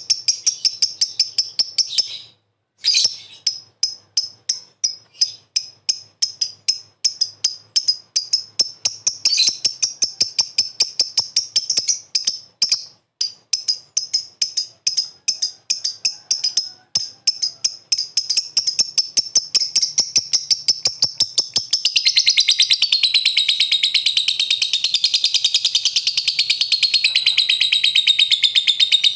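Lovebird calling: sharp, high chirps repeated several times a second, with a brief pause near the start. About three-quarters of the way through the calls run together into a continuous fast chatter, the long 'ngekek' song.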